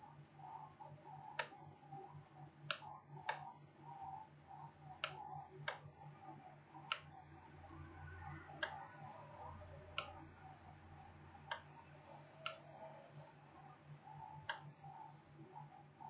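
Computer mouse clicking: about a dozen sharp single clicks, one to two seconds apart, over a faint steady low hum.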